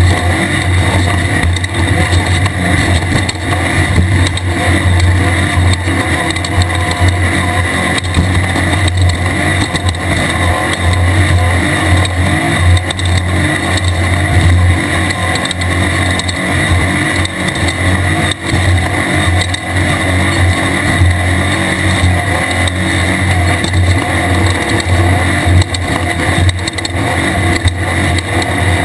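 Air-cooled VW 1600 engine of a 1600-class desert race car running steadily at speed, heard loud from on board with constant rumble and noise from the car on rough ground.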